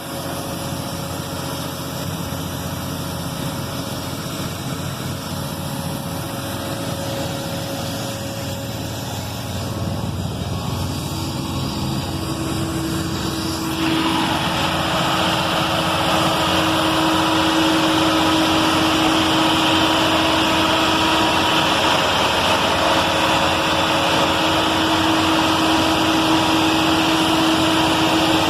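Scania electronic diesel engine running steadily. It gets louder in two steps, about ten and about fourteen seconds in, and a steady whine joins from about eleven seconds.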